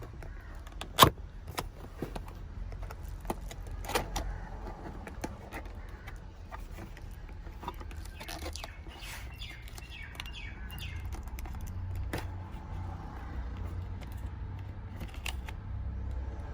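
Box packaging being handled and opened: scattered clicks and knocks, the sharpest about a second in, over a low steady rumble, with a few bird chirps in the middle.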